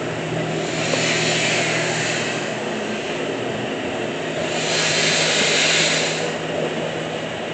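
Milking pipeline's automatic wash system running: water and air rushing through the pipeline and milker hoses, the hiss swelling and fading about every three seconds over the steady hum of the pump.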